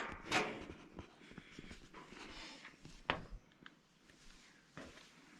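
Faint rustling from a handheld camera and scattered light knocks of footsteps on a fire tower's metal steps, with a breath just after the start and one sharper knock about three seconds in.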